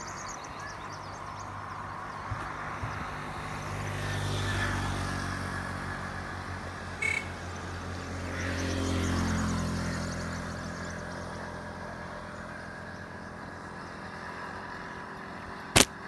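A motor vehicle's engine passing nearby: a low hum that swells and fades twice, around four and nine seconds in. Near the end comes one sharp crack, the loudest sound.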